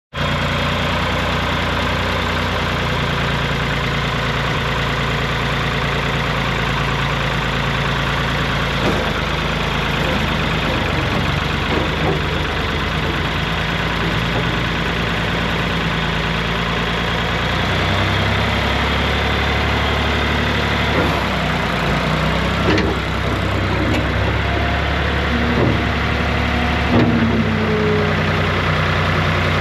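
Diesel-era loader tractor engine running steadily at idle. About two-thirds of the way through, the engine note drops lower and grows slightly louder as the front loader is worked and the bucket raised, with a few short clicks and knocks over it.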